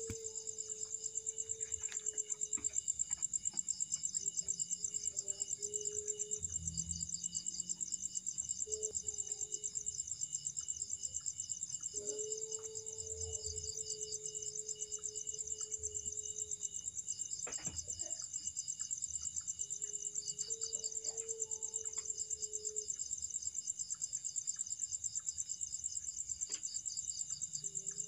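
Crickets trilling steadily at night, a high, fast-pulsing chorus. Under it an unidentified low, slightly wavering held tone comes and goes about six times, each for up to about five seconds; it is a sound that can be likened to a person moaning in pain.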